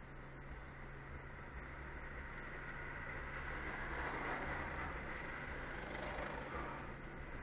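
A car passing close by, its tyre and engine noise swelling to a peak about four to six seconds in and then easing off. It is heard from inside a stationary car's cabin over a low steady hum.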